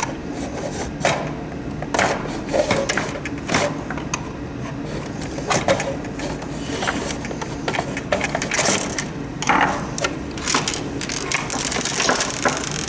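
Irregular clicks, knocks and short scrapes of plastic humidifier parts and circuit boards being handled and pulled apart, over a steady low hum.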